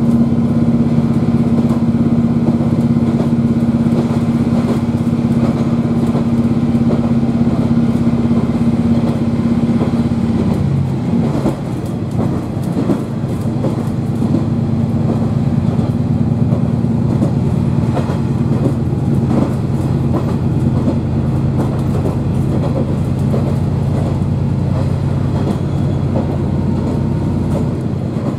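KiHa 40 diesel railcar under way, heard from inside the passenger cabin: the diesel engine drones steadily, and its hum drops in pitch about ten seconds in. In the second half the wheels clatter over rail joints in short clicks.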